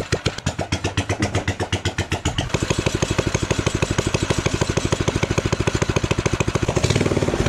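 Mini moto (pocket bike) engine running with slow, distinct firing pulses, then picking up to a faster, steady run about two seconds in.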